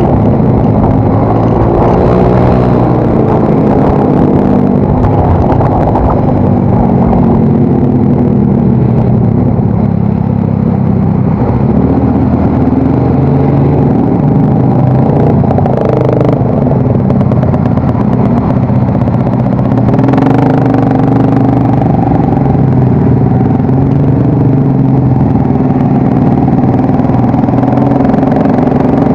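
Yamaha Mio Soul GT scooter's single-cylinder engine running through an aftermarket exhaust while riding. Its pitch rises and falls as the throttle opens and closes.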